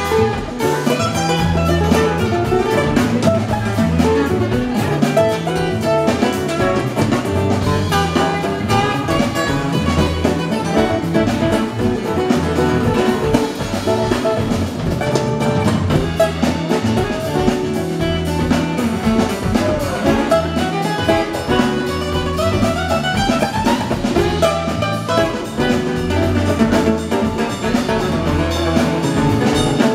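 Live acoustic band playing an instrumental passage: two strummed acoustic guitars over an electric bass line, with hand drums keeping the beat.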